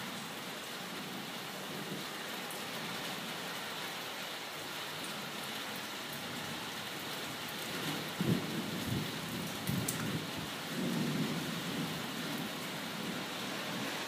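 Steady hiss of heavy rain, with thunder rumbling in several rolls from about eight seconds in, the first roll the loudest.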